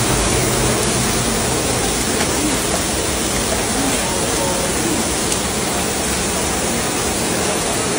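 Floodwater rushing across a car park floor, a loud, steady rush of water.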